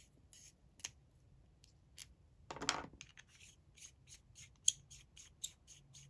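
Clear plastic cap of an Opus 88 demonstrator fountain pen being twisted by hand to unscrew its end and free the clip. It makes a run of faint, short scratchy rubbing strokes, a few a second, with one louder brief rustle about two and a half seconds in.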